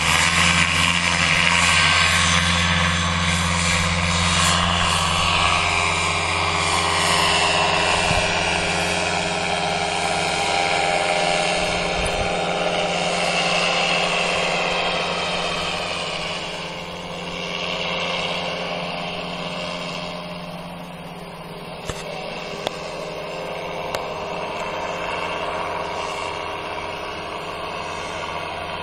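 Paramotor engine and propeller running at high power through the takeoff run and climb-out. The steady hum is loudest at first, then slowly fades and wavers as the powered paraglider flies away.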